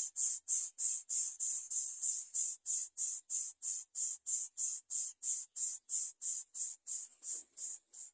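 Baby birds' begging calls for food: short, hoarse, hiss-like cries repeated evenly about three times a second, cutting off suddenly near the end.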